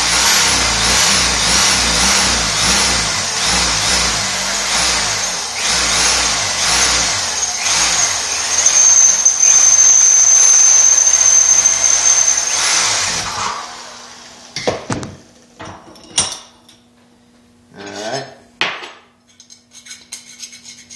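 Handheld electric drill boring a hole through a metal bracket clamped in a vise, running steadily with a shrill, steady squeal of the bit in the metal for a few seconds before the drill stops about 13 seconds in. A few short metallic knocks and clinks follow as the part is handled at the vise.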